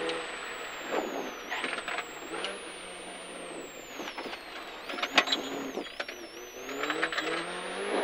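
Rally car's engine running under load, heard from inside the cabin; its pitch sinks about six seconds in and climbs again near the end. A few sharp knocks and rattles come about five seconds in.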